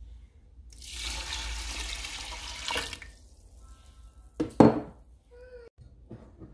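Tap water running into a stainless steel Instant Pot inner pot of dry wheat berries for about two seconds, to rinse them. About four and a half seconds in come two loud knocks.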